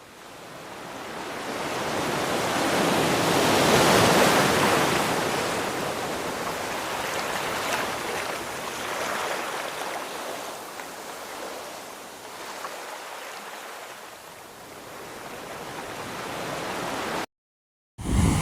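Ocean surf: a wave breaking and washing up the beach, swelling to its loudest about four seconds in and then slowly receding. A smaller swell builds near the end before the sound cuts out abruptly.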